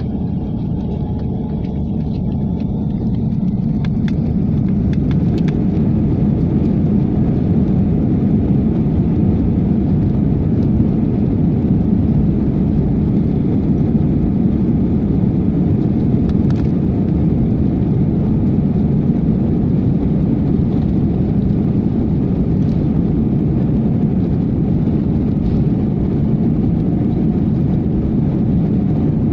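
Airliner jet engines spooling up to takeoff power, heard inside the passenger cabin. A deep, steady rumble grows louder over the first few seconds, with a faint rising whine, then holds at full strength.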